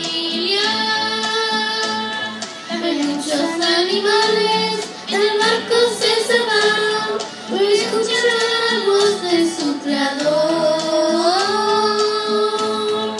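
Young girls singing a worship song into microphones, their voices carried through the church's sound system in a long gliding melody.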